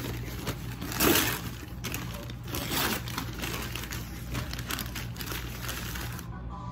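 Paper fast-food bags and wrappers rustling and crinkling as they are handled and unwrapped, loudest about a second in and again near three seconds.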